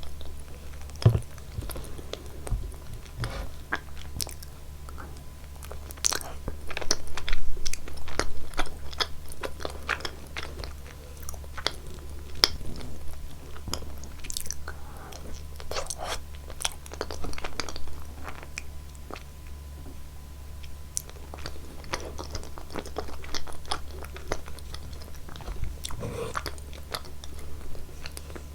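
A person biting and chewing food close to the microphone: wet chewing with many short crisp clicks and crunches, busiest about six to nine seconds in, over a steady low hum.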